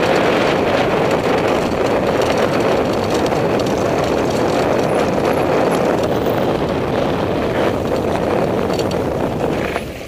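Steady rushing of wind over an action camera's microphone, mixed with mountain-bike tyres rolling on a gravel track during a fast descent. The noise drops away near the end as the bike slows to a stop.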